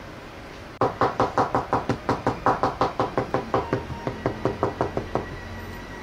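Small leathercraft hammer tapping rapidly on overlapped pieces of thin goatskin lying on a cutting mat, pressing the seam flat. About five or six taps a second, starting about a second in and stopping about five seconds in.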